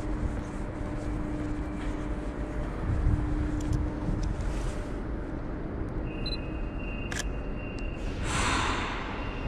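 Steady low rumble of railway station platform ambience, with a faint hum in the first half and a faint high whine in the second. About seven seconds in there is a sharp click of a camera shutter, and a short hiss follows near the end.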